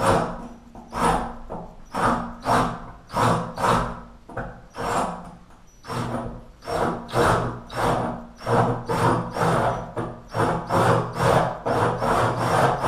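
Cordless drill spinning a wet 3/4-inch diamond-tipped hole saw against porcelain tile to start the hole, grinding in rhythmic pulses over the motor's hum, about two a second at first and quickening to nearly three a second toward the end.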